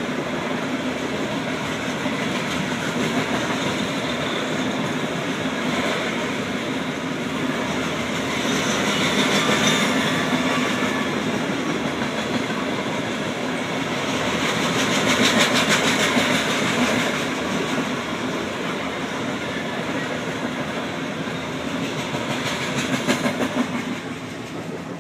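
Loaded coal cars of a CSX coal train rolling past: a steady rumble and rattle of wheels on rail, with a quick regular clacking of wheels over rail joints. It grows louder about ten and again about fifteen seconds in, and drops near the end.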